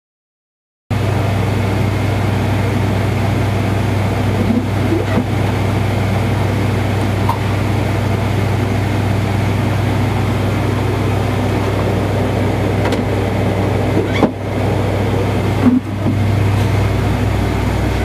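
A steady loud hum and hiss that starts abruptly about a second in, with a few faint clicks scattered through it, the clearest near the middle and toward the end.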